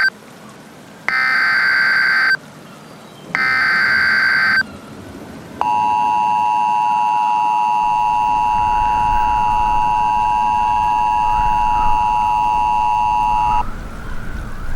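Emergency Alert System tones. First the end of one SAME data burst and two more buzzy, screeching header bursts, each about a second long with short gaps. Then the steady two-tone EAS attention signal (853 and 960 Hz together) sounds for about eight seconds and cuts off abruptly near the end.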